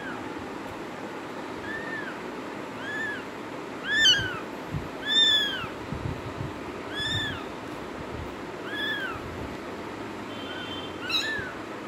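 Two-week-old kitten mewing: short, high, rising-and-falling mews repeated about once a second or so, loudest around four to five seconds in.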